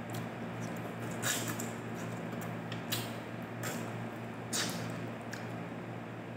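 A person eating fish and vegetables with their fingers, with a handful of short, wet lip-and-finger smacks while chewing, over a steady low hum.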